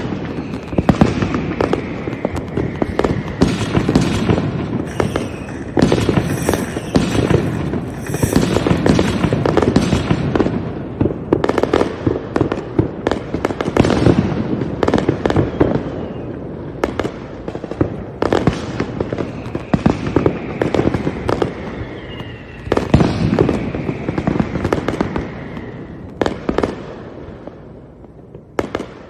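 Fireworks going off in a dense barrage of bangs and booms. Now and then a whistle falls in pitch, and there is a stretch of high crackling about a quarter of the way in. The barrage thins and fades near the end.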